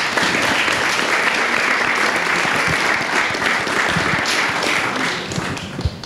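Audience applauding, a dense steady clapping that dies away near the end.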